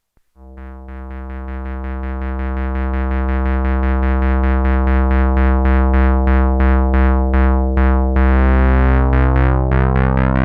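Behringer MS-1 analog monophonic synthesizer, a clone of the Roland SH-101, playing a low repeated note with short, bright filter plucks at about five a second, getting louder over the first several seconds. Near the end the notes start stepping through changing pitches in a sequenced pattern.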